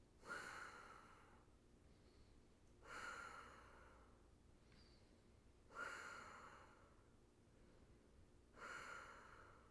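A man breathing slowly and audibly while holding a reclined yoga twist: four soft, airy breaths about three seconds apart.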